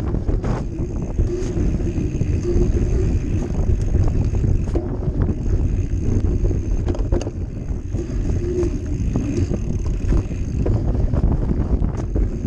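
Mountain bike ridden fast down a dirt forest trail: steady wind buffeting on the camera microphone and tyre rumble, broken by frequent short rattles and knocks as the bike goes over bumps.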